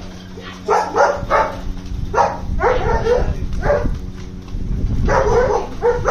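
German Shepherd barking, a string of about eight loud, short barks with a brief lull a little after the middle.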